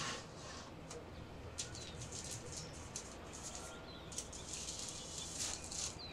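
Parchment paper and aluminium foil rustling and crinkling in quick, irregular bursts as a cauliflower pizza crust on parchment is laid onto a foil-lined pizza stone in the oven, with a few faint short high chirps.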